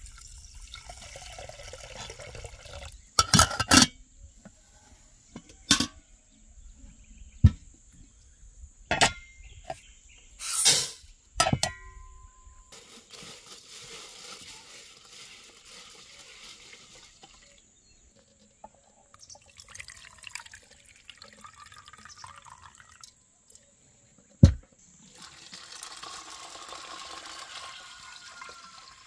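Water poured from a kettle into metal pots, splashing onto dry rice and later onto yellow split peas. Between the pours comes a run of sharp knocks, and a single loudest knock falls shortly before the last pour.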